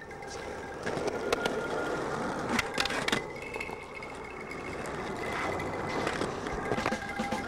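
Skateboard wheels rolling on smooth concrete, a steady rough rumble, with a few sharp clacks of the board about one and three seconds in.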